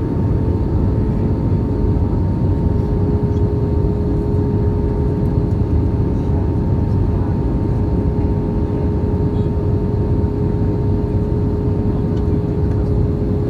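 Airliner in flight: steady engine and air noise, a low rumble with a constant whine.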